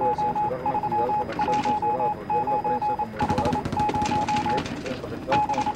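A single steady-pitched electronic beep pulsing on and off rapidly in short runs, like a telegraph or news-wire signal, over a faint muffled voice.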